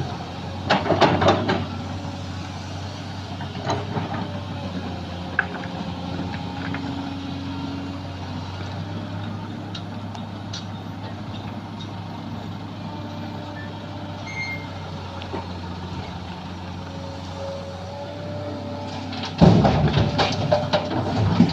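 Sany SY215C excavator's diesel engine running steadily under load, with a wavering hydraulic whine. Bursts of heavy clattering come about a second in and again near the end.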